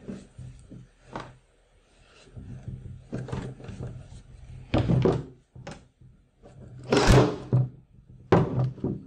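Canvas being folded and pressed around the corner of a wooden stretcher frame: the fabric rustles and rubs against the wood, with scattered dull thunks as the frame and tools knock on the wooden tabletop. The loudest is a longer rustling burst about seven seconds in.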